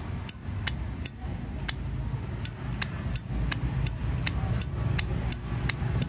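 Satin chrome Zippo lighter's hinged lid being flicked open and snapped shut over and over, about two to three sharp metal clacks a second, some with a short bright ring. This clack and ring is the lighter's prized 'âm', here called extremely good.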